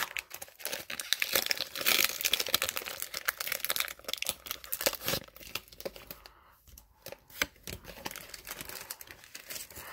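Foil wrapper of a Pokémon trading card booster pack being torn open and crinkled: a dense, crisp crackle for about five seconds, then sparser, quieter crinkles and clicks.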